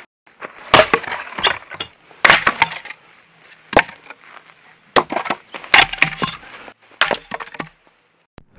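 Short-handled axe chopping firewood: a series of sharp strikes about a second apart, each with the crack and splintering of wood splitting.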